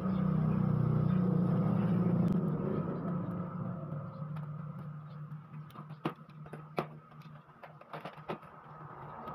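A low rumble that swells and fades over the first three seconds, then a few sharp knocks and clicks as the laptop is closed, turned over and laid face down on a silicone mat.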